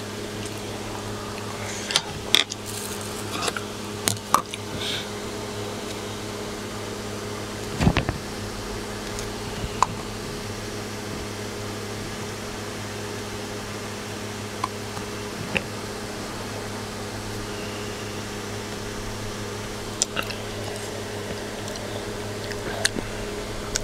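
A steady electrical hum from a room appliance, with scattered small taps and clicks as utensils are handled and a kiwi is peeled by hand. One louder knock comes about eight seconds in.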